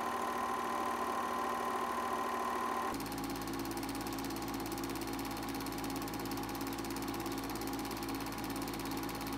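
8mm film projectors running, their motors whirring with the rapid, even clatter of the film-advance mechanism. First a Bell & Howell standard 8mm silent projector, then, after an abrupt change about three seconds in, a Eumig Mark M Super 8 silent projector with a lower, steadier hum.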